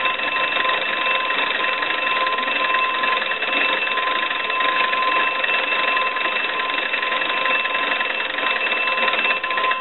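The twin bells of a Wesco wooden wall crank telephone ring continuously as its hand-cranked magneto is turned. This is a check that the freshly adjusted ringer and the newly installed crank-to-ring circuit work.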